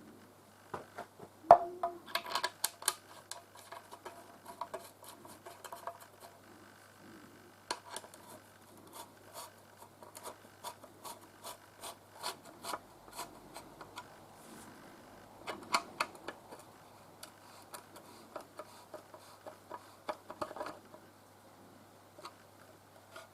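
Hands fitting 3D-printed plastic parts together: irregular clicks, scrapes and rubbing in clusters, with one sharp click about a second and a half in.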